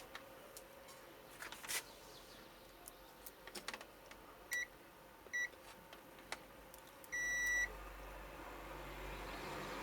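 Digital multimeter's continuity buzzer: two short high beeps, then a longer beep of about half a second, with light clicks of the test probes touching the transistor's legs. The beep signals continuity between the probed legs, here the short found in the TV's faulty transistor.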